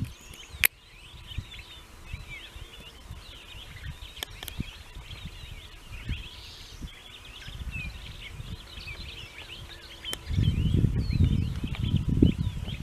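Many small birds twittering and chirping without pause, with a few sharp taps. A loud low rumble starts about ten seconds in.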